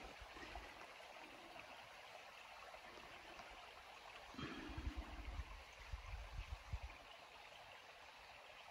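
Faint, steady rush of a creek flowing about 30 feet below. A few low bumps and rumbles come between about four and seven seconds in.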